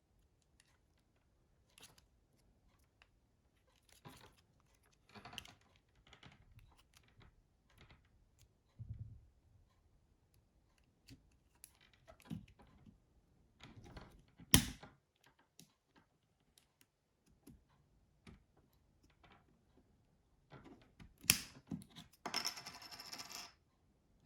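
Plastic housing parts of a Nokia 6060 being handled and pressed together: scattered light clicks and scrapes, with one sharp snap a little over halfway through and another near the end, followed by a brief scraping rustle.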